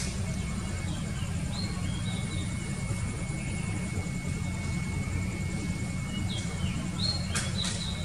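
Small birds giving short high chirps, a few about a second or two in and a cluster near the end, over a steady low rumble. A thin steady high tone runs beneath them and stops a little before the end.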